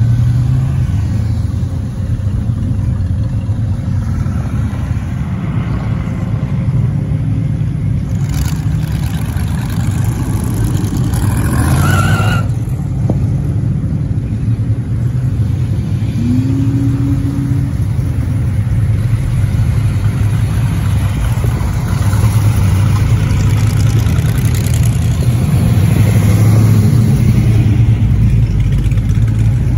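Classic American cars and pickups driving slowly past one after another, their engines rumbling low and steady. About twelve seconds in, one engine revs up briefly.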